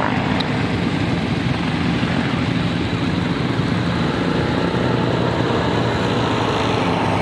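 Several utility quad bike (ATV) engines idling together in a steady, overlapping drone, with the machines lined up waiting for a race start.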